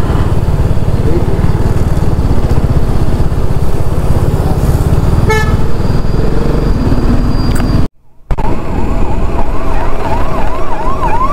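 Wind rushing over the microphone of a moving motorcycle, with a brief quick run of beeps about halfway through. After a short dropout in the sound, a siren warbles up and down about three times a second through the rest.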